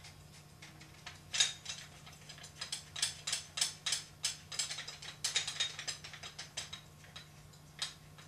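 Irregular run of light metallic clicks and ticks, sparse at first, then coming thick and fast before thinning out, as a screw is turned by hand into the metal plates of a camera body-mount support.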